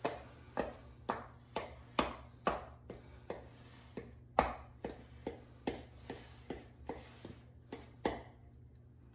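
Cooked spaghetti being chopped in a bowl with the edge of a spatula: a steady run of sharp chopping strokes, about two a second, that stop about eight seconds in.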